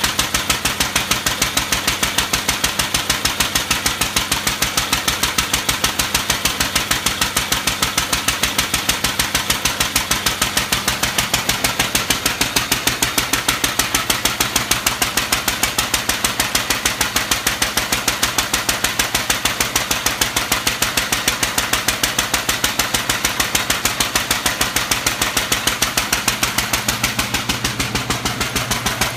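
Lister Junior single-cylinder stationary engine running steadily under its own power, with a rapid, even exhaust beat.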